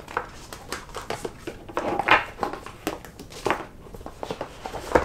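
Thick cardboard game boards handled on a wooden table: scattered taps, slides and rustles as boards are laid down and shifted, with a few sharper knocks about two seconds in, midway and near the end.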